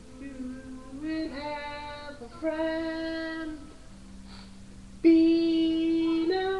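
Children's song with a high voice singing slow, long held notes: four notes with a short pause after the third, the last one, about five seconds in, the loudest.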